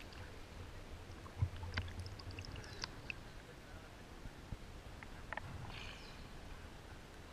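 Faint water lapping and small splashes against a camera held at the surface of a clear river, with scattered little drips and clicks and a brief low rumble about a second and a half in.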